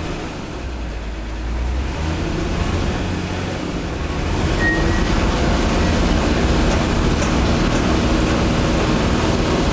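Hydraulic waste compactor running: a steady low machine hum from its pump, growing louder about four to five seconds in as it works.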